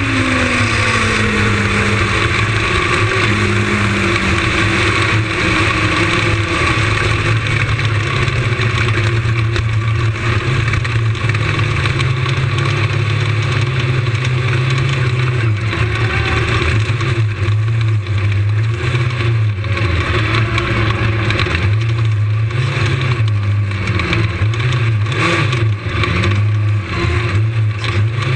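Lightning sprint car's engine heard from on board, its pitch falling steadily over the first couple of seconds as the car comes off the pace. It then runs low and uneven at slow speed, with small rises and dips in pitch from light throttle as the car rolls off the track.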